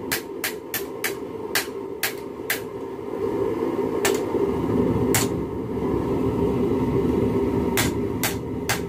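Hand hammer striking a hot railroad spike on an anvil: sharp blows about three a second, slowing to two single blows in the middle before the quick rhythm resumes near the end. A steady low rushing noise runs underneath, louder mid-way.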